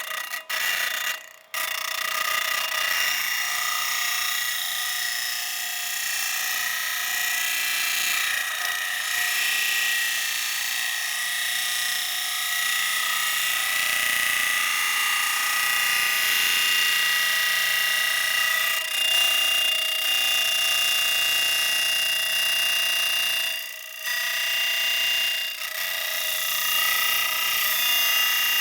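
Electric grinder running with a steady high whine. It cuts out briefly twice in the first second and a half, then runs on, dipping briefly twice near the end.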